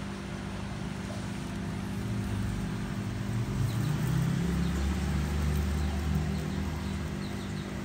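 Low engine rumble of a passing vehicle that swells in the middle and fades near the end, over a steady low hum.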